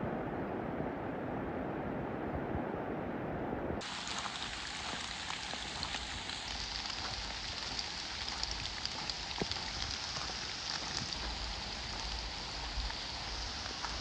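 Steady rain falling, an even hiss with many faint scattered drop ticks. About four seconds in the sound changes abruptly from a duller noise to the brighter rain hiss.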